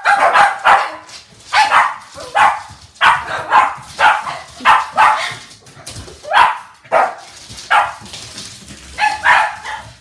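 Shih tzus barking excitedly at play, in repeated short barks of about one to two a second, with a short lull near the end.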